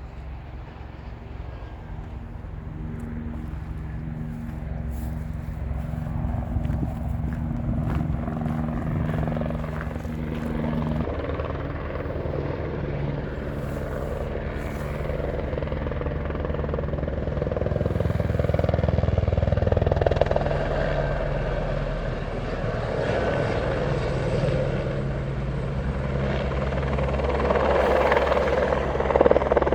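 A helicopter's steady engine and rotor drone, growing louder over the half-minute as it approaches.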